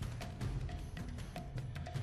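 Background music with a steady percussive beat and deep drum hits.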